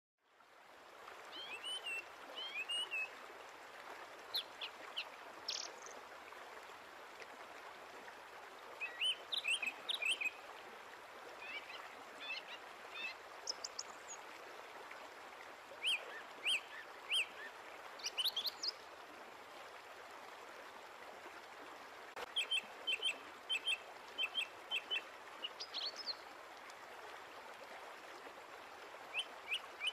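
Small birds chirping in scattered runs of short high calls, over a steady background hiss.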